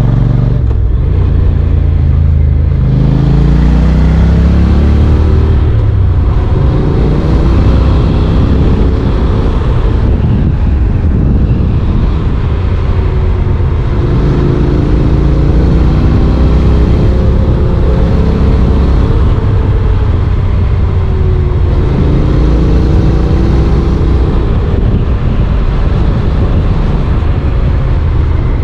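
Honda NC750X's parallel-twin engine heard from onboard while riding, its pitch climbing and falling back several times with the throttle, over a steady rushing noise.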